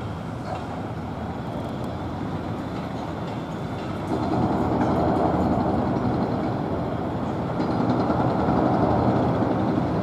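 Steady rumble of engine noise that swells about four seconds in and again near the end.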